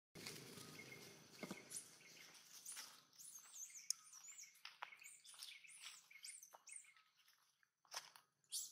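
Dry leaf litter rustling and pattering as macaques scamper over it, with a run of faint, high-pitched chirps, two or three a second, through the middle.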